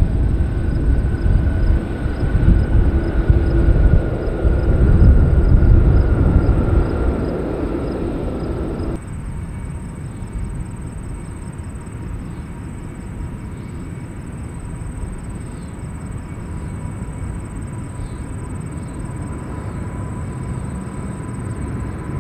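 Jet airliner passing close by: loud engine noise with a high whine that falls slightly in pitch. About nine seconds in, the sound cuts abruptly to a quieter, steady rumble with a faint high tone.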